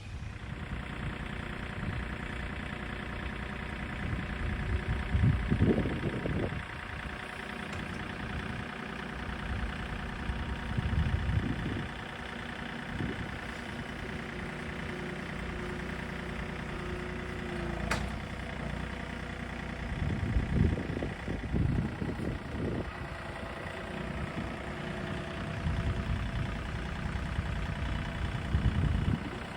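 John Deere 3025E compact tractor's three-cylinder diesel engine running steadily while it works a grapple picking up limbs, swelling louder several times. There is one sharp click partway through.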